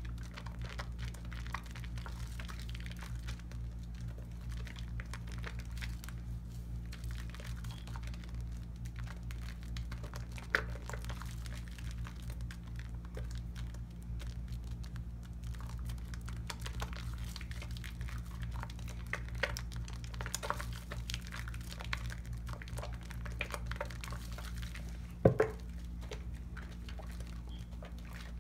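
Wet hands rubbing and squeezing a bar of cocoa butter soap into a lather: soft, irregular squishing and crackling of the foam over a steady low hum, with one sharper knock near the end.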